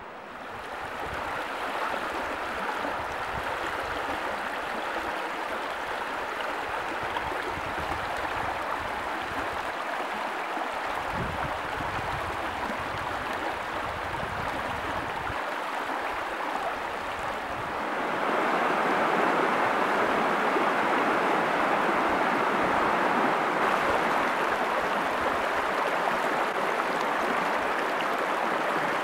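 River water rushing over rocks and shallow riffles: a steady rush that grows louder about two-thirds of the way through.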